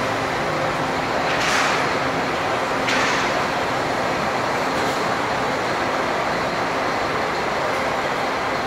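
Double-decker coach's diesel engine running as the coach pulls slowly into a bay, a steady hum with two short hisses about one and a half and three seconds in.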